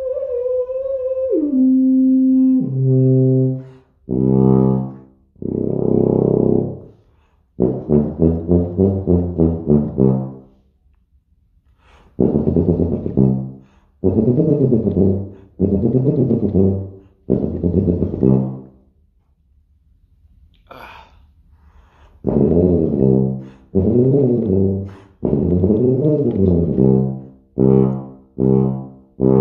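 Schiller XL 5/4 C tuba played solo, his first notes of the morning before a full warm-up. A few long low notes step downward, then come phrases of quick tongued notes and runs moving up and down, broken by short pauses for breath.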